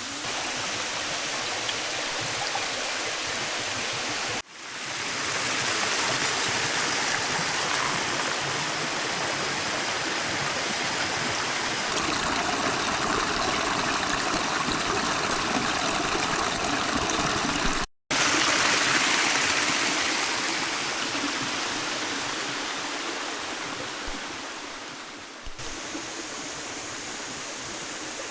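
Rushing water of a jungle waterfall cascade: a steady, dense hiss of falling and flowing water. It cuts out briefly twice, about four and a half and eighteen seconds in, and comes back a little louder each time.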